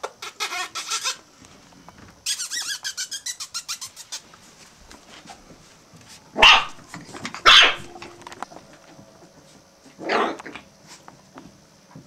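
Five-week-old Australian Terrier puppies yapping: two sharp, high yaps about a second apart midway, the loudest sounds, and a third a few seconds later. Two quick runs of short rapid sounds come near the start.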